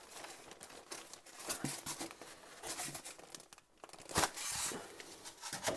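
Rustling and scraping of polystyrene foam packing and a plastic bag being pulled out of a cardboard box, in short irregular bursts, with one sharp knock about four seconds in.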